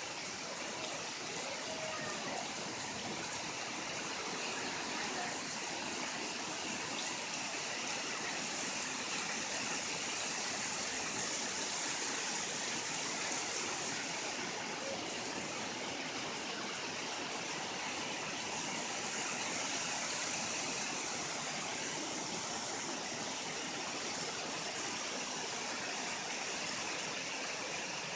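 Heavy rain pouring steadily, an even hiss of water with no thunder.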